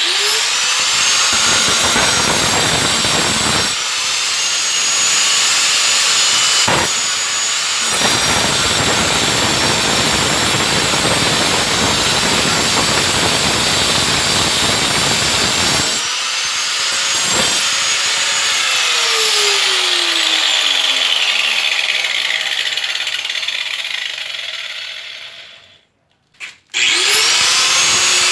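Angle grinder with a thin stainless-steel cutting disc, started up and cutting 18-gauge steel sheet, with harsh grinding noise in several long stretches. About two thirds of the way in it is switched off and its whine falls as the disc winds down. It stops briefly, then is started again near the end.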